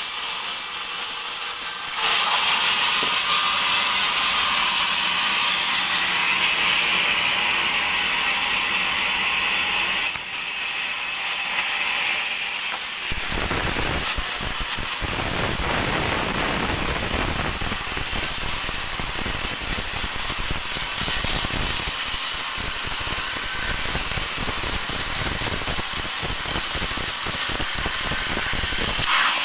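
Sawmill band saw running and cutting a teak beam: a continuous hissing, rattling machine noise that changes abruptly several times, with a heavy low rumble joining about 13 seconds in.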